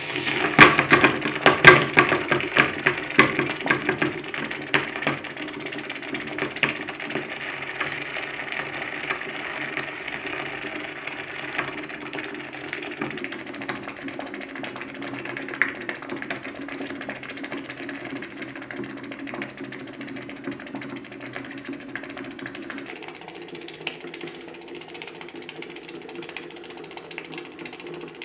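A glowing-hot metal ball crackling and sizzling as it burns into something. It starts suddenly with dense, loud popping, settles after a few seconds into a steadier, quieter crackle, and drops a little more near the end.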